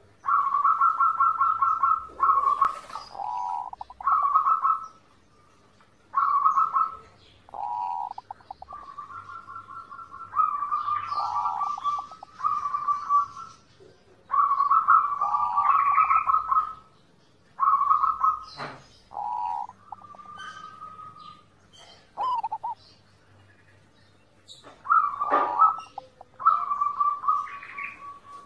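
Zebra dove (perkutut) cooing: phrases of rapid staccato notes, each about a second long, repeated with short pauses.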